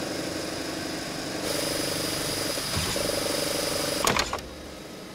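Braille embossing press running: a steady mechanical hum with a fast, even chatter of punching strokes. About four seconds in there is a brief clatter of sharp clicks, and then the machine noise drops lower.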